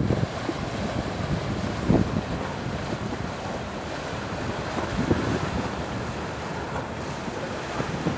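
Wind buffeting the microphone in gusts, with the loudest buffets about 2 and 5 seconds in, over the wash of choppy harbour water churned by a passing ferry.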